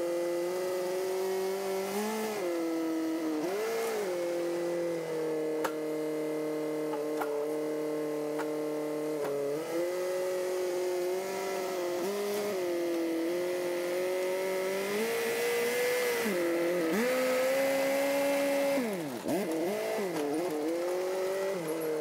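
Small crawler bulldozer's engine running under load as it pushes dirt, its pitch sagging and recovering again and again. There is a deep drop in engine speed near the end.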